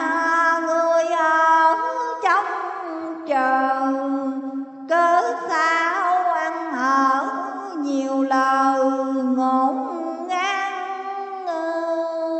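A single voice chanting Vietnamese Hòa Hảo scripture verse in a slow sung melody, drawing out long held notes of a second or two and sliding between pitches.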